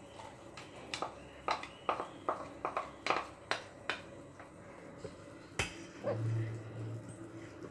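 Soaked red poha knocked out of a plastic container into a pan: about a dozen sharp taps and knocks over a few seconds, then a single sharp click and a short low hum.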